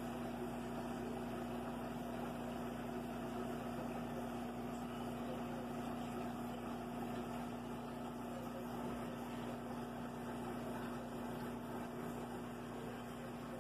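Aquarium pump humming steadily: one constant low tone over an even hiss.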